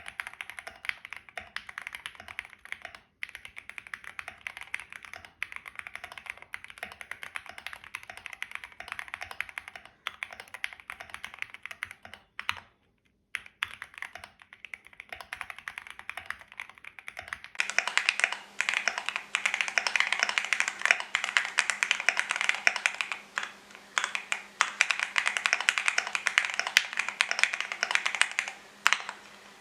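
Continuous typing on a QK75 custom mechanical keyboard with unlubed Gateron CJ linear switches, case, plate and PE foam, and Akko ASA-profile keycaps: a dense run of key clicks. The typing stops briefly a little before halfway, and just past halfway it turns louder and brighter.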